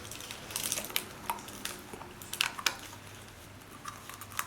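Irregular light plastic clicks, taps and scrapes of a small plastic putty egg being handled and pried open by a baby capuchin monkey.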